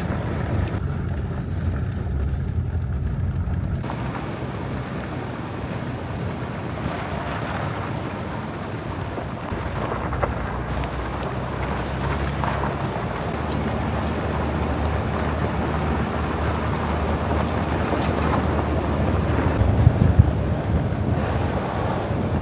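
Vehicle driving, heard from inside the cab: a low engine hum that changes pitch a few times, over steady road and wind noise. There is a brief louder jolt near the end.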